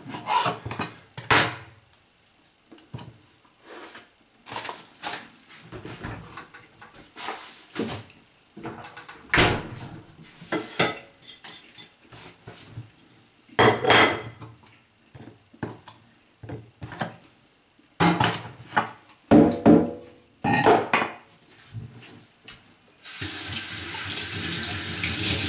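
Dishes and cutlery clattering and knocking at a kitchen sink, irregular clinks and bumps. Near the end a tap is turned on and water runs steadily into the sink.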